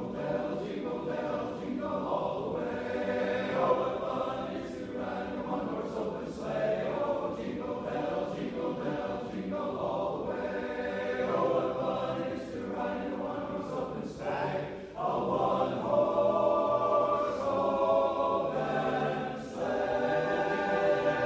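Men's barbershop chorus singing a cappella in close harmony, with a short break about two-thirds of the way through before the voices come back stronger.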